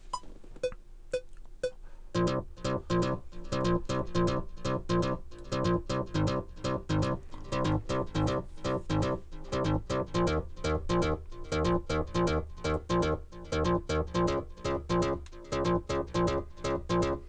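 A recording count-in of metronome clicks, about two a second with a higher click on the bar's first beat. About two seconds in, an Access Virus synthesizer starts playing a fast, repeating sequenced pattern with a heavy bass, triggered over MIDI.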